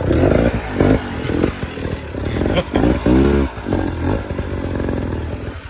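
Enduro dirt bike engine revving in short bursts as the bike is forced up a rocky climb. The strongest rev rises and falls about three seconds in.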